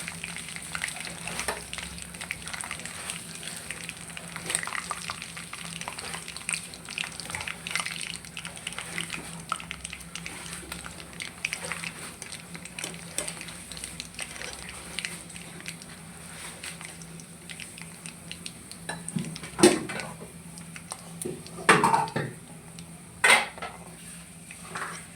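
Chicken frying in hot oil in a karai, with a steady fine crackling sizzle. Near the end, a metal utensil clatters against the pan three times.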